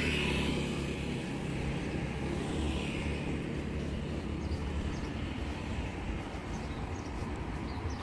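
Road traffic: cars going past, one right at the start and another about three seconds in, over a steady low engine rumble.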